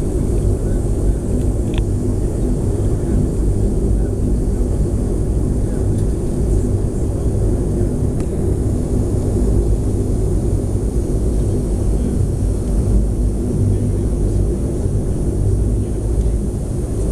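Aircraft engines running steadily: a loud, even rumble with a low hum that holds level throughout.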